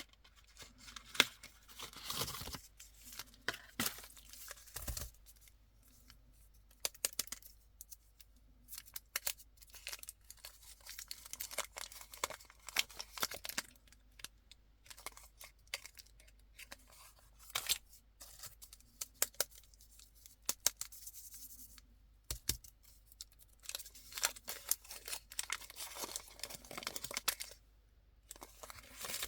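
Candy wrappers and plastic packaging being handled and torn open: irregular bursts of crinkling and tearing with many small sharp crackles and clicks.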